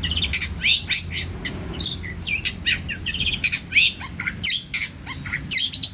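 Long-tailed shrike (cendet) singing a fast, unbroken chatter of short, varied chirps, sweeps and harsh squawks, full of mimicked calls of other birds.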